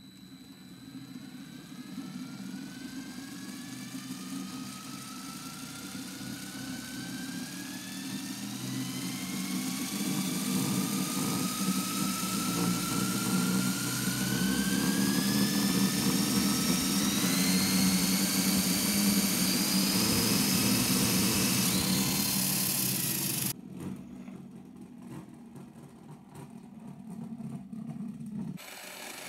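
Motorised LEGO Technic Beyblade launcher's gear train spinning up a Beyblade top, a whine climbing steadily in pitch and getting louder for about twenty seconds. The whine cuts off suddenly, leaving a lower hum that stops a few seconds later.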